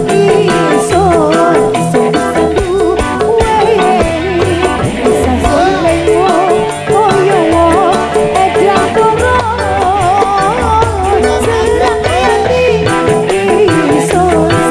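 Live dangdut band music, loud and continuous: a wavering lead melody over quick, dense percussion and bass.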